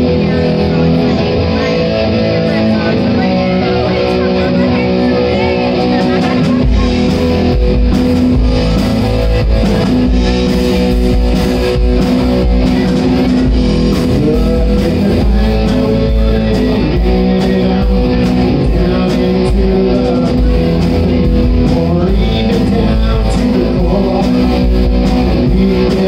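Live rock band playing: electric guitar, bass guitar and drum kit. The sound grows heavier in the low end about seven seconds in.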